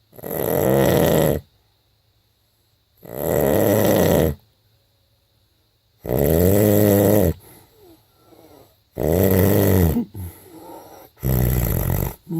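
A person snoring in their sleep: five loud snores about three seconds apart, each lasting about a second and a half, some with a clear droning pitch.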